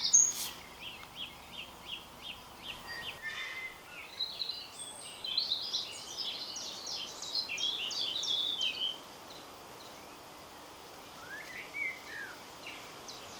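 Small songbirds singing: a run of quick chirps in the first few seconds, a busier twittering song from about four to nine seconds, then a few short rising-and-falling calls near the end, over a faint steady background hiss.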